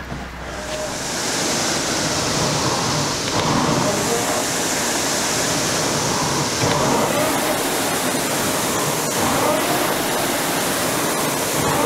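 Steady rushing noise that comes up about a second in and then holds, with faint sounds recurring every few seconds.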